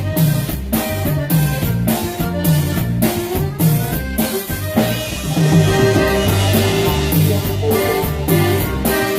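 A live band playing an instrumental piece with drum kit, bass and guitar, with a steady beat and a cymbal-heavy passage about halfway through.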